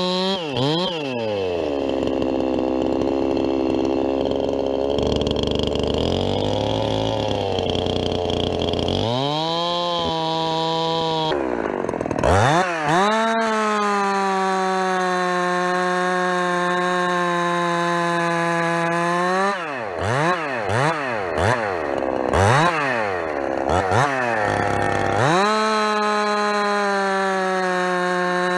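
Two-stroke chainsaw dropping to low revs just after the start, then revving up at about ten seconds and running at full throttle through hard, dry Garry oak, its revs dipping and recovering several times in the middle. It cuts smoothly, without chatter.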